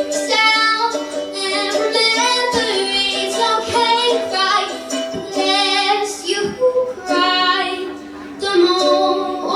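A woman singing a slow song live, holding long notes over steady instrumental accompaniment.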